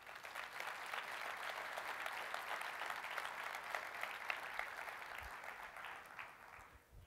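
Audience applauding: many hands clapping together, building over the first second and fading away near the end.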